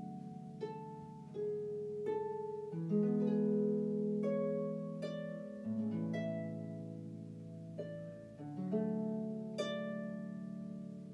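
Background music: plucked notes, each ringing out, over held low chords that change every few seconds.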